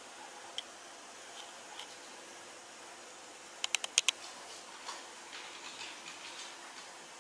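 Faint steady room hiss with a few sharp clicks, including a quick run of about five clicks about four seconds in.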